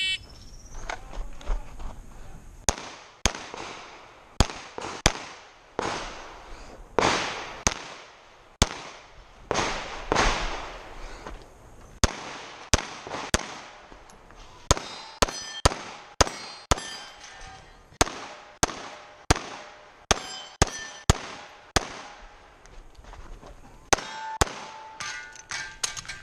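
A shot timer's start beep, then a run of pistol shots fired in quick strings with short pauses between them. Several hits are followed by the ringing clang of steel targets.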